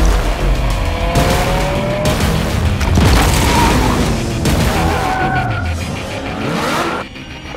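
Music soundtrack layered with a Lamborghini Aventador's V12 engine revving, tyres skidding and deep booms. The sound dips briefly near the end.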